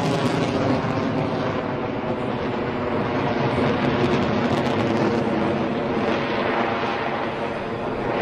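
Lockheed Martin F-22 Raptor's twin Pratt & Whitney F119 turbofan engines at high power overhead: a loud, steady jet roar with a buzzing tone running through it.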